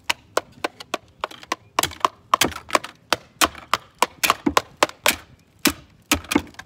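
A hammer striking a toy car over and over: sharp, uneven blows about three a second, some with a short ring.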